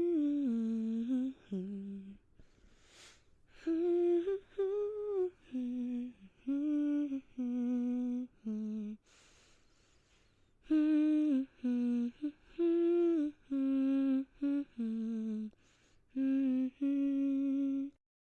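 A person humming a tune with closed lips, in short held and sliding notes, in two phrases with a pause and a breath between them.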